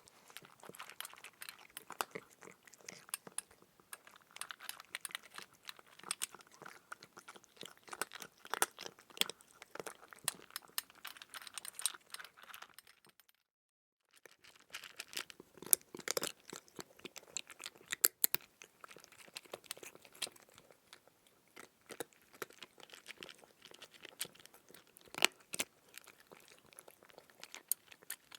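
Cat eating, chewing and crunching its food in quick, irregular bites, with a short dead-silent break about halfway through.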